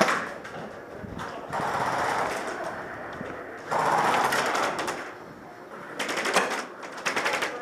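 Airsoft guns firing on full auto: a burst of rapid clicking shots near the end, after stretches of steady hissing noise.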